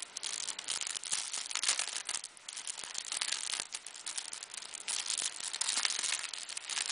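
Clear plastic bag crinkling and crackling as hands work it open and pull at its contents: a continuous run of irregular, fine crackles.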